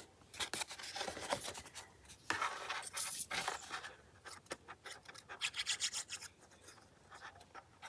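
Paper being rubbed and scraped by hand in short, irregular scratchy strokes, louder in the first half and fading to lighter scuffs later on.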